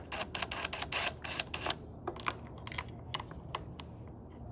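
A fast series of sharp clicks from a DeWalt cordless drill/driver working a screw into a metal floodlight mounting bracket, dense for the first couple of seconds and then thinning out to a few scattered clicks.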